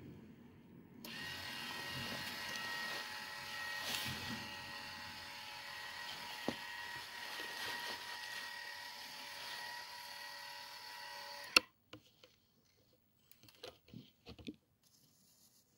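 Small electric tipping motor of an RC model dump trailer running with a steady whine as it lowers the tipper body. It starts about a second in and stops abruptly near the three-quarter mark with a click, followed by a few faint clicks.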